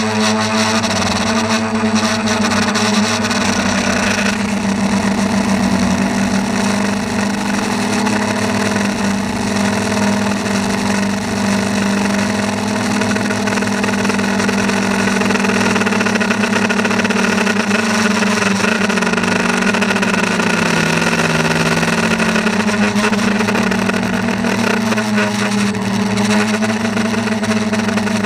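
A motor running steadily with a strong, even hum. Its pitch dips for a couple of seconds about two-thirds of the way through, then returns.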